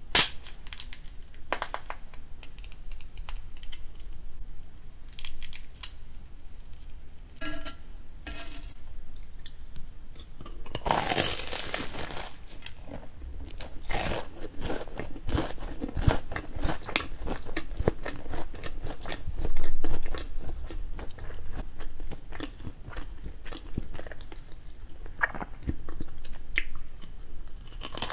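Corn dog bitten and chewed close to the microphone, its fried batter crunching in quick clicks. The first ten seconds hold only a sharp click and faint handling sounds; the crunchy chewing then runs on densely, with loud bites about eleven seconds in and again near twenty.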